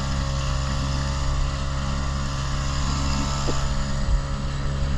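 Motorboat engine running at a steady pitch under a constant rushing noise.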